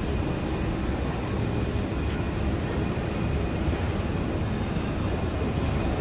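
Steady low outdoor background rumble with no distinct events, and a faint constant high tone running through it.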